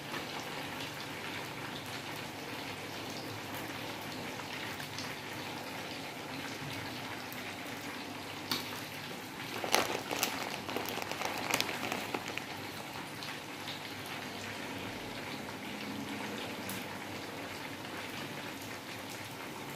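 Hot oil crackling steadily in a frying pan on a gas burner, with a few light knocks and clatters about nine to twelve seconds in.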